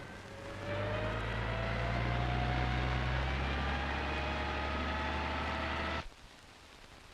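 Aircraft engines droning, with a whine that rises slowly in pitch, cutting off suddenly about six seconds in.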